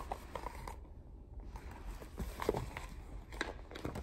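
Quiet rustling and a few light taps as a hardcover picture book is handled and its page turned.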